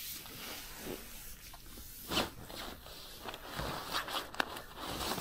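Rustling and rummaging as gear and clothing are moved about in a tent, with a few light knocks.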